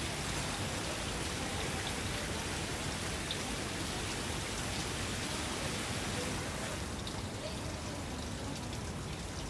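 Steady hiss of falling or splashing water, easing slightly about seven seconds in.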